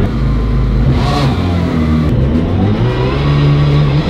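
Supercharged 300-horsepower jet boat engine running hard under way, its note climbing in the second half as it revs up.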